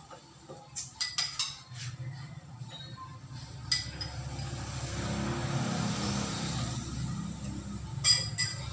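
A spoon clinking against a small ceramic bowl: a quick run of sharp clinks about a second in, a single one near the middle, and two more near the end, over a low steady hum.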